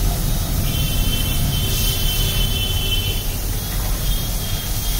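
Pneumatic impact wrench being run on compressed air: a steady hiss of air through the coiled hose over a low mechanical rumble, with a thin high whine from about half a second to about three seconds in.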